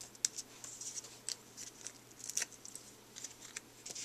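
Faint rustling of cardstock pieces being handled and pressed down onto a card, with a few short crisp clicks and taps scattered irregularly.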